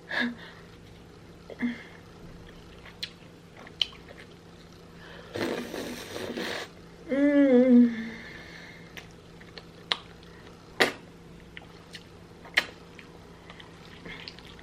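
Close-up eating sounds of a saucy turkey leg being chewed, with scattered sharp mouth clicks. About five seconds in comes a second-long rushing noise, followed by a loud pitched burp lasting about a second whose pitch sags as it ends.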